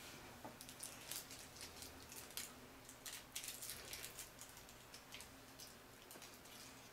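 Faint, irregular crinkling and crackling of a paper cupcake liner being handled and pulled open by the fingers.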